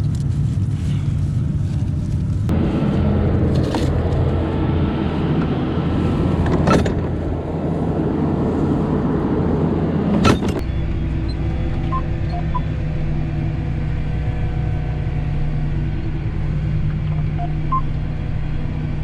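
Large farm machine's diesel engine running steadily. From about two seconds in it runs louder for several seconds, with three sharp clunks, then settles back to a steady drone.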